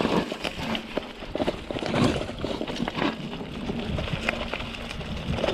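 Mountain bike rolling down a dirt singletrack: tyres running over packed dirt and leaf litter, with the bike rattling and clattering in quick irregular clicks over a low, steady rumble.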